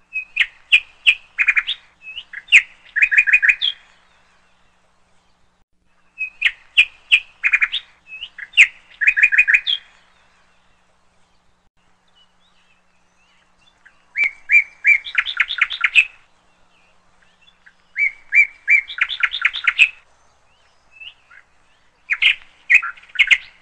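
A songbird singing phrases of quick chirps and trills, each about two to four seconds long, repeated five times with short pauses between.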